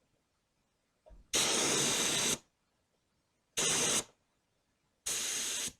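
Paint spray gun loaded with epoxy primer, triggered three times in short test bursts of compressed-air hiss: about a second, then two of about half a second each, each cut off sharply.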